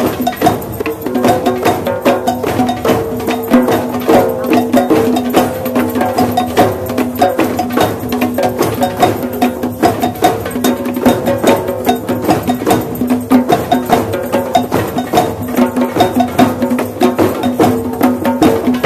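Large group drum circle: many hand drums and percussion instruments played together in a dense, steady rhythm, with a few held pitched tones running underneath.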